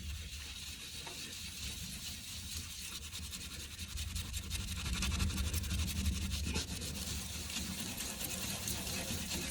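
Paper towel scrubbing the sooty glass door of a wood-burning stove insert, a continuous rubbing and scratching on the glass.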